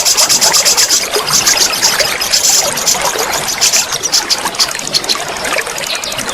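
A songbird singing a fast run of high, repeated notes, several per second, over the steady rush of running water from a waterfall.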